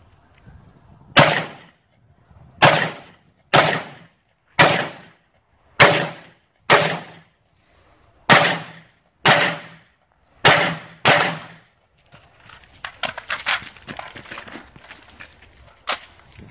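Rifle fired in a string of ten single shots, roughly one a second and unevenly spaced, each report trailing off in an echo. Quieter clattering and clicking follow, then one more shot near the end.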